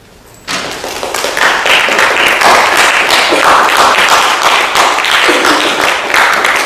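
Audience applauding, breaking out suddenly about half a second in and keeping up a dense, loud clatter of many hands.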